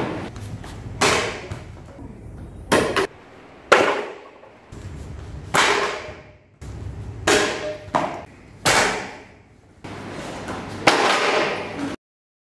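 Wooden boards cracking as they are broken by children's taekwondo kicks: a series of about seven sharp cracks, a second or two apart, each dying away quickly. The sound cuts off shortly before the end.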